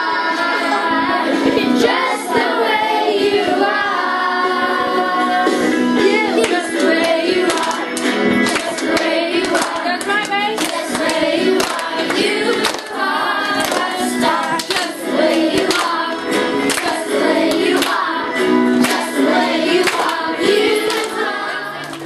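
Music with a group of voices singing, children's voices among them, over frequent sharp hand claps.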